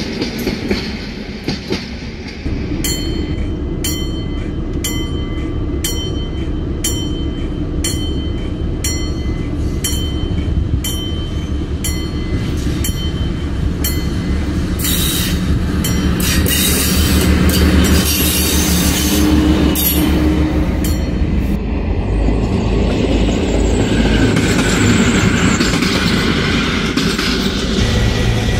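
HŽ series 7122 diesel-hydraulic railcar running on the track, its diesel engines sounding with wheel noise and squeal. Sharp regular ticks come about once a second for the first half, the passing grows loudest a little past the middle, then settles into a steadier engine sound.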